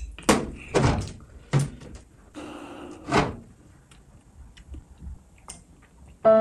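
Four sharp knocks and thumps, with a short breathy gasp between the last two: a glass vodka bottle being lowered after a neat swig and set down on a table.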